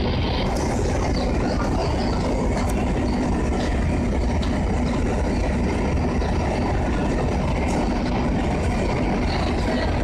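Two SNCF BB 67400 diesel-electric locomotives coupled in multiple, their engines running steadily with a deep, even drone.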